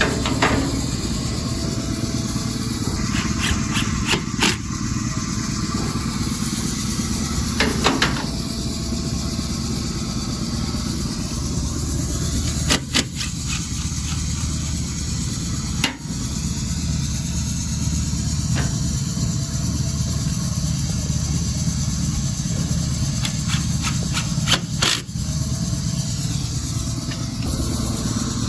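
A steady low engine-like drone runs throughout, with a few sharp knocks and clicks several seconds apart, typical of work on a steel door frame.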